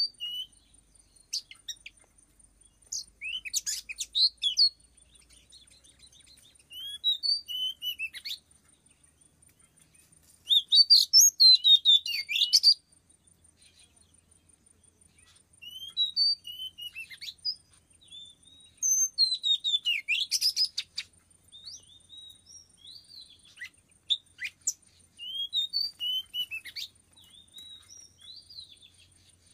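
Oriental magpie-robin calling and singing in bouts of quick, whistled, pitch-gliding chirps, each a second or two long, with short pauses between them. The loudest bout comes about eleven seconds in.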